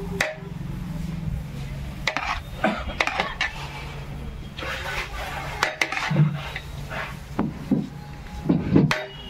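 Dishes and metal utensils clinking and scraping in a string of sharp, irregular clicks, over a steady low hum.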